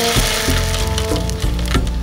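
Background music over hot oil sizzling and crackling as a clump of thin noodles deep-fries in a wok; the sizzle fades about a second and a half in.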